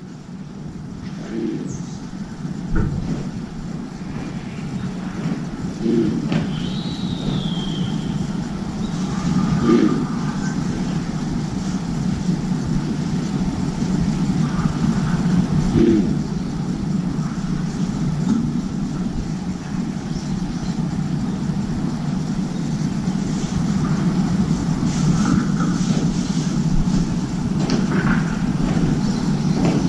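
Steady low hum of distant city traffic. About seven seconds in there is one brief falling high whistle.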